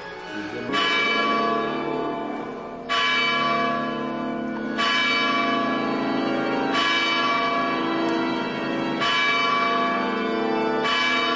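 Church bell tolling slowly, struck six times about every two seconds, each stroke ringing on until the next.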